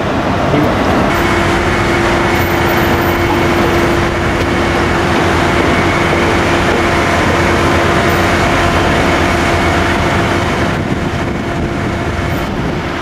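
Steady machinery noise with a constant hum that comes in about a second in and fades near the end.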